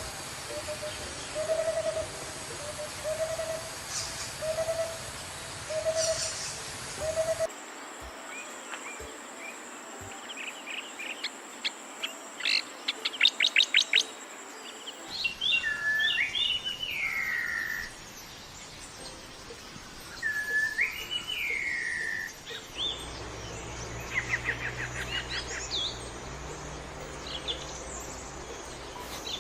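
Several different birds calling in spliced recordings over a steady hiss of forest background. First comes a run of short low hoots, about one and a half a second; then quick trills; then loud whistled calls that rise and fall; then scattered chirps.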